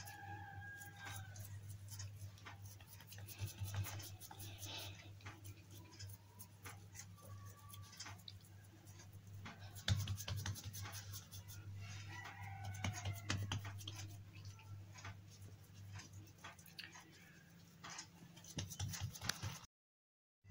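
Hands patting and pressing a log of cookie dough on a silicone baking mat: soft scattered taps over a steady low hum, with one sharper tap about halfway through.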